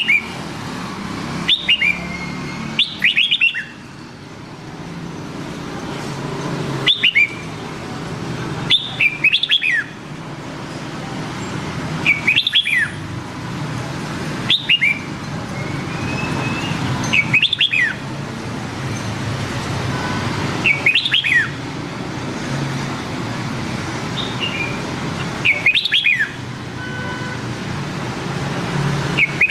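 Red-whiskered bulbul singing: short, quick whistled phrases of sweeping notes, about a dozen, repeated every one to four seconds over a steady low rumble.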